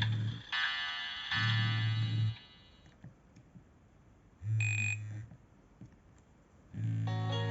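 Nokia E65 ringtones playing through the phone's speaker: a chiming melody ends about three seconds in, a short high tone follows, and another melody begins near the end. Under them the phone's vibration motor buzzes in pulses of about a second, every two to three seconds.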